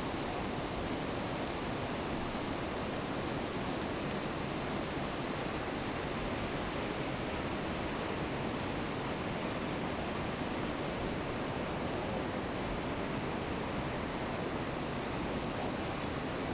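Steady rush of flowing river water around the wading anglers, an even hiss that does not change.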